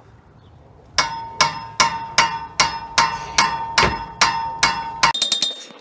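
A short sledgehammer strikes a pipe wrench's handle about eleven times, a little over two blows a second, each blow ringing metallically. The hammering is meant to shock loose a stuck radiator fan clutch nut. It ends with a brief run of quicker, lighter taps.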